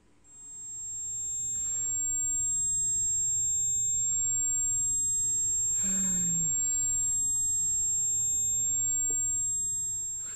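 A steady high-pitched ringing tone fades in over the first second and holds unbroken. About six seconds in, a man sighs under it.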